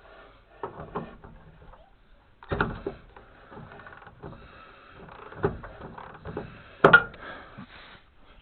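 Irregular clanks and knocks of hand tools and metal parts while bolts are worked loose on an old truck. The sharpest knock comes about two-thirds of the way through.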